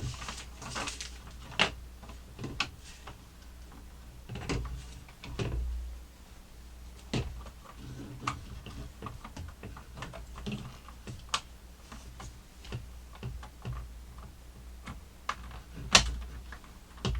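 Hard plastic parts of a Snoopy snow cone maker clicking and knocking irregularly as a piece is pushed on and twisted to lock it in place. One louder knock comes near the end.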